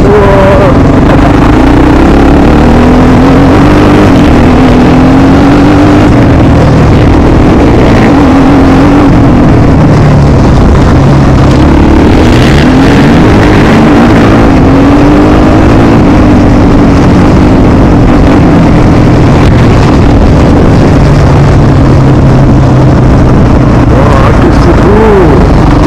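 Suzuki LT-Z400 QuadSport quad's single-cylinder four-stroke engine running hard and loud, close up, revving up and down again and again as the throttle is worked.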